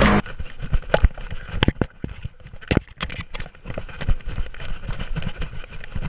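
Irregular thumps and knocks of footsteps running on the ground, with the microphone jostled.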